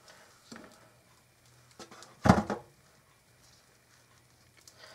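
Baked potatoes being set down with tongs in a metal cake pan: a few light knocks, with one louder thud a little over two seconds in.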